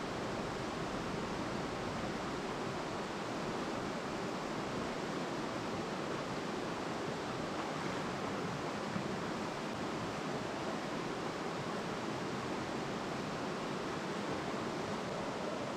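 Steady rushing of a shallow river flowing over rocky rapids, an even unbroken water noise.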